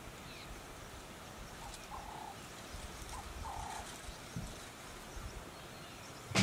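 Quiet outdoor ambience with faint bird calls: two calls about a second and a half apart, each a short note followed by a longer one, and a few faint high chirps.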